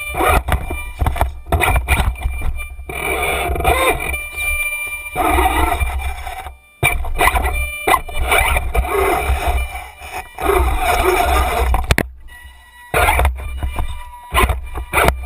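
Onboard sound of an RC scale rock crawler being driven: the electric motor and drivetrain whine while the chassis and tyres knock and scrape over rough ground, in irregular clatters with a constant low rumble. The sound drops out briefly twice.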